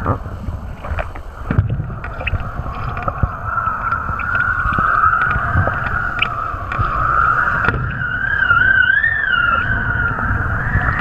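Wind rushing over an action camera's microphone while a kiteboard planes across shallow water, a steady rushing hiss and rumble. A whistling tone rises and falls in pitch for a couple of seconds near the end.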